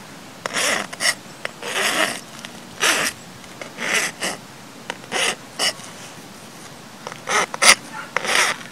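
Flat metal hand file rasping over the sawn end of a PVC pipe in short strokes, roughly one a second with a brief pause partway through. It is deburring the rough edge left by the hacksaw cut.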